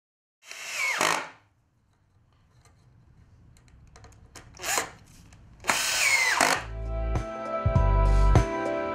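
Cordless drill run in three short bursts into pallet wood, its motor pitch falling away in the longer bursts. Background music with a pulsing bass comes in about seven seconds in.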